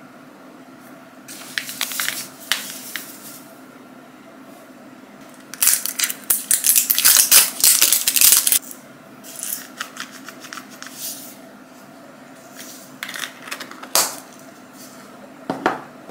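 Salt grinder filled with rock salt crystals being twisted: a dense run of crunching clicks lasting about three seconds in the middle. Shorter rattles and clicks of handling come before and after it, with a sharp knock near the end.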